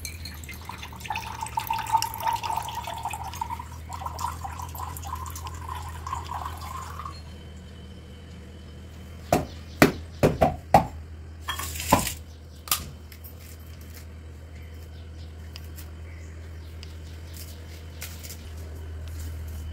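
Water trickling as it is poured from a small steel tumbler for about six seconds, then a handful of sharp metallic clinks of steel puja vessels, over a steady low hum.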